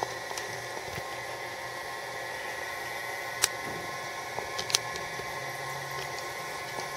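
Steady background hiss with a low hum and faint steady whines, broken by three sharp clicks, the loudest in the middle.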